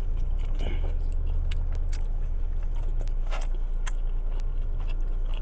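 Close-up biting and chewing of a fried chicken sandwich, with scattered crunches and mouth clicks over a steady low hum.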